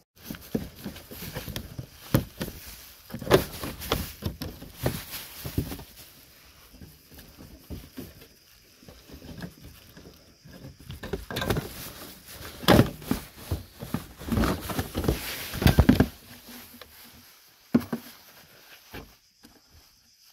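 Irregular clicks, knocks and rattles of hands and tools working on a car's plastic underbody panels and trim clips. They come in two busy stretches with a quieter spell between.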